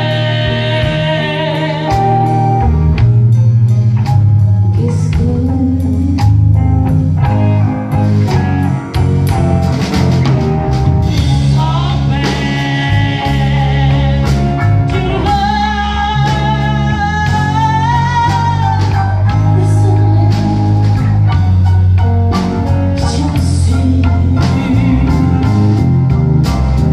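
Live blues band playing: a woman singing over electric guitar, bass guitar and drums.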